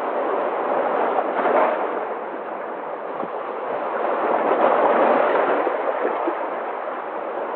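Sea surf: a continuous rush of waves breaking and washing ashore, swelling and ebbing, loudest about halfway through.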